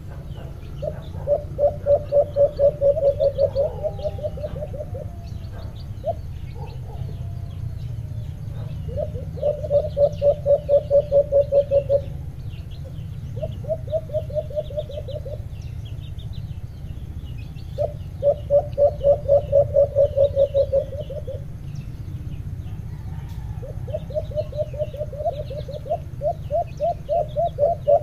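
Caged alimokon doves kept as hunting decoys, calling in repeated bouts of fast, evenly pulsed low cooing, each bout lasting a few seconds, about four times. Small birds chirp at a higher pitch throughout.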